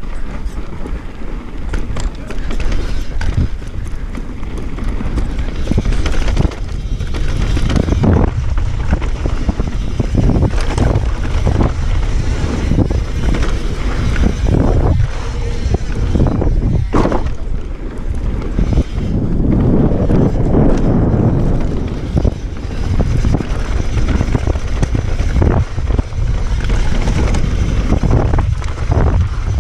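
Mountain bike running fast down a dirt trail: heavy wind buffeting on the microphone, tyres rolling on loose dirt, and the bike clattering and knocking over bumps again and again.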